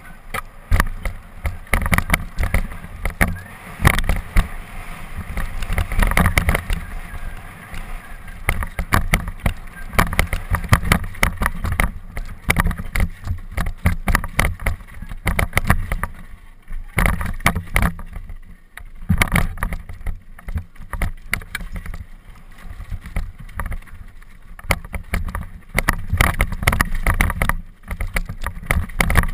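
Mountain bike descending fast on a rocky dirt trail: wind rushing over the microphone and a constant, irregular clatter of knocks as the bike and camera jolt over rocks and ruts.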